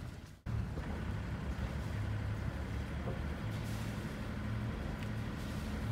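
An engine running steadily with a low, even hum, starting after a brief dropout about half a second in.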